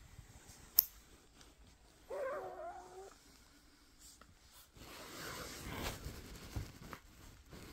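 A metal nail clipper snaps shut once on a newborn's fingernail about a second in. About two seconds in, the baby gives a short, wavering, cat-like whimper lasting about a second, followed later by rustling of cloth and handling.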